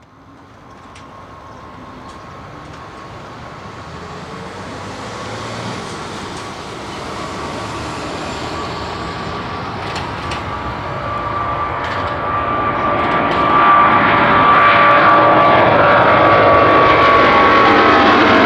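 Boeing 777-200 jet engines at takeoff power, growing steadily louder for about fourteen seconds and then holding loud, with a steady high fan whine over the roar.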